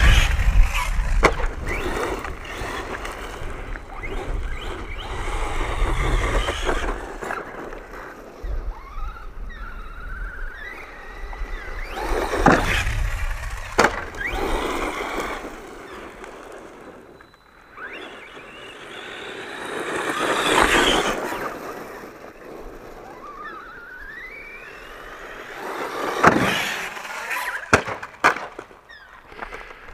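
1/10 scale RC monster truck being driven hard: its motor whines up and down in pitch with the throttle, its tyres scrub across concrete, and it lands several sharp thumps as it comes down from jumps.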